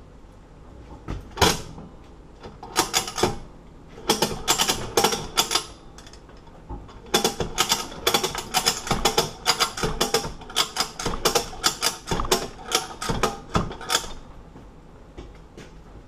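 Bolt cutters straining against a hardened padlock shackle, their jaws and handles giving sharp metallic clicks and creaks in irregular runs, densest at about three a second through the second half. The cutters are at their limit and are not cutting.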